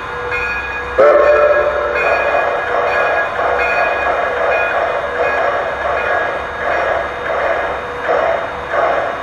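Large-scale model steam locomotive's onboard sound system, playing with the train standing. A sudden louder start about a second in, then a regular pulsing hiss, about three pulses every two seconds.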